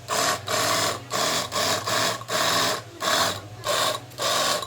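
Hand tool worked back and forth on a hard surface in steady strokes, like filing, scraping or scrubbing, about two strokes a second, over a steady low hum.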